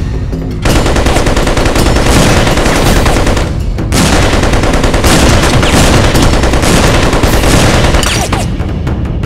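Sustained rapid machine-gun fire, a film sound effect, in two long stretches: one starting about half a second in, and a short break near the middle. It eases off near the end.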